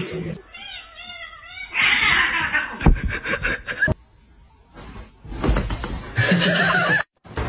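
Domestic cats squabbling: a wavering yowl about half a second in, then hissing and scuffling noises with a sharp thump near three seconds, and more hissing and scuffling after a short quiet gap.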